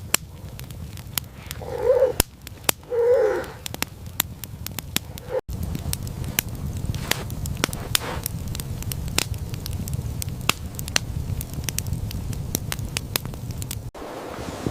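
Fire crackling in irregular sharp pops over a low steady rumble, with two short animal calls about two and three seconds in.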